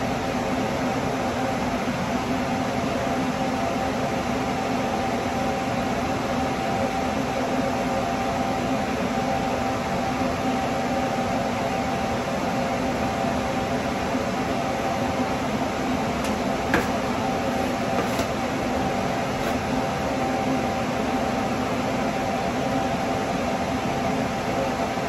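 Steady mechanical hum of a fan, unchanging throughout, with a few faint clicks about two-thirds of the way in.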